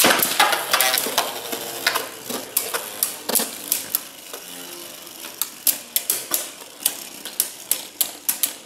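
Drain Fafnir, Nightmare Longinus and Arc Bahamut Beyblade Burst tops spinning and clashing in a plastic Beystadium. Rapid, irregular clicks of the tops striking each other and the stadium wall come thickly in the first few seconds, then as sharper, spaced clicks over a faint spinning hiss.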